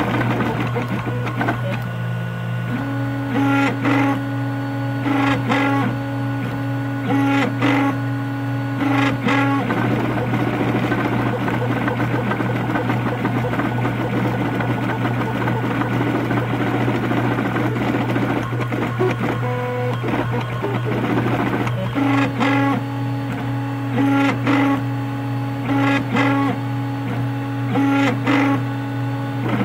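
MendelMax RepRap 3D printer running a print: its stepper motors whine in held pitched tones as the print head traces back and forth, with a louder short buzz about every second, over a steady low hum. Between roughly 10 and 22 seconds the tones drop away to a rougher whir, then return.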